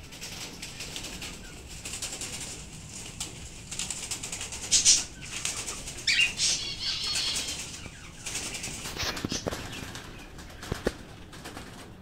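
Cockatiels flapping their wings in an aviary cage, fluttering repeatedly as they dodge a catching net, with a few bird calls about halfway through.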